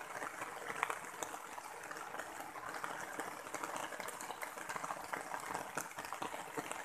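Light rain pattering steadily: a soft wet hiss with many small drop ticks.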